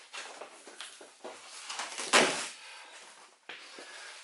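Interior trim being handled and pulled out of the car: scraping and rustling with a few small knocks, and one loud sharp knock about two seconds in.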